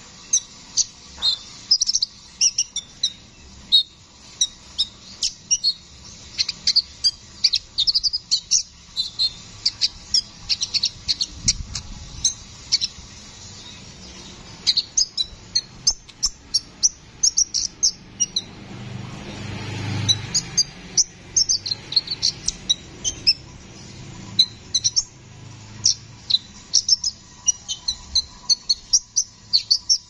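Male copper-throated sunbird (kolibri ninja) singing in long, rapid runs of sharp, high chirps and twitters with only short pauses. A low rumble swells and fades about two-thirds of the way through.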